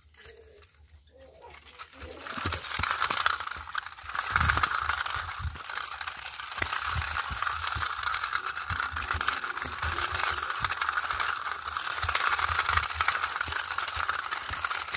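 Plastic toy wheel loader pushed by hand over dry, gritty dirt: its wheels and bucket keep up a steady rattling and scraping with many small clicks, starting about two seconds in.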